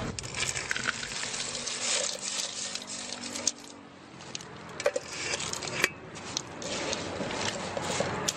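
Sweet potato slices sizzling in hot oil in a wok, with a metal skimmer clinking now and then. After a break about three and a half seconds in, crisp fried sweet potato chips are stirred with a utensil, rustling and clicking.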